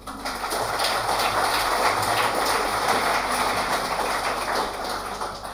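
Audience applauding, swelling up quickly and tapering off near the end.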